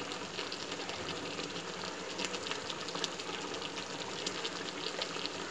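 Blended onion-tomato masala bubbling and sizzling in hot oil in a large kadhai, a steady hiss studded with small irregular pops, as the masala is fried down (bhunai) with freshly added spices.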